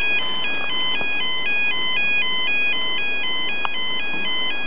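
Level crossing warning alarm sounding, an electronic two-tone warble that switches rapidly between a higher and a lower pitch, about two cycles a second. It is the alarm that warns road users while the crossing barriers lower for an approaching train.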